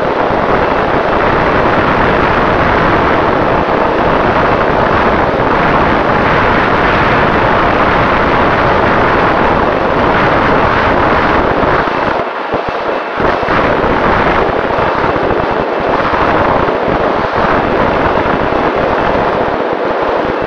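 Onboard recording of a small electric RC flying wing (AR900) in flight at half throttle: a loud, steady rush of wind over the airframe and the camera's microphone, with buffeting and a faint steady motor-and-propeller whine underneath. The roar eases briefly about twelve seconds in.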